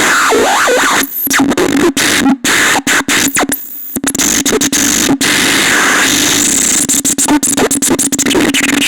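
Electronic noise instrument playing harsh, glitchy noise over a steady low drone, with quick swooping pitch sweeps at first, then rapid stuttering cut-outs.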